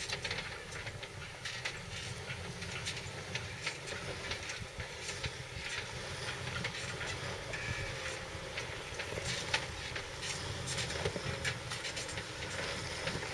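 Jeep Wrangler Rubicon's 4.0-litre straight-six running low and steady as the Jeep crawls over boulders, with frequent sharp clicks and crunches of tyres and rocks.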